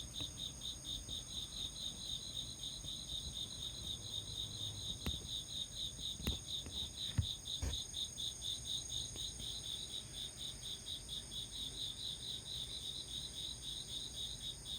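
Crickets chirping in an even rhythm, about five chirps a second, over a steady high insect trill. A few soft knocks come around the middle.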